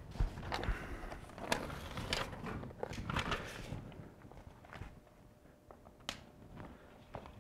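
Self-adhered flashing tape (Grace Vycor Plus) and its backing paper crinkling and rustling as it is peeled and pressed by hand onto the window flange, in a run of crackly bursts over the first few seconds. A single sharp click about six seconds in.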